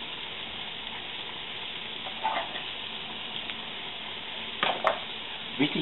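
Kidney beans, onions and garlic sizzling steadily in hot sunflower oil in a frying pan, stirred with a utensil, with a couple of short scrapes.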